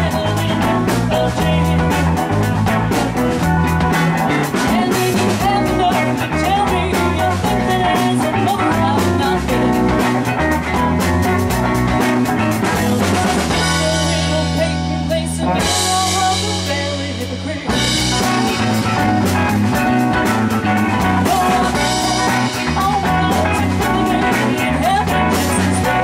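Live rock band playing: hollow-body electric guitar and drum kit keeping a steady beat. About halfway through, the drums drop away for a few seconds of held chords, then the full band comes back in.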